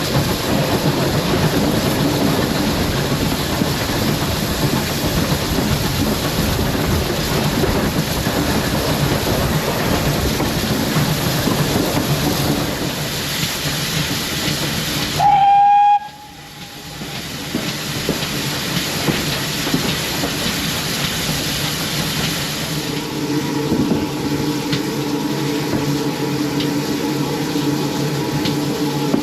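Railway coach running along the track with a steady rumble, then a short, loud steam locomotive whistle about halfway through. The level then drops suddenly, and later a steady, lower engine hum sets in.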